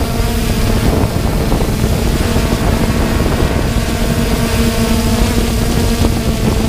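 3DR Solo quadcopter's motors and propellers humming at a steady pitch while hovering, heard from its own onboard camera, with rumbling wind noise on the microphone.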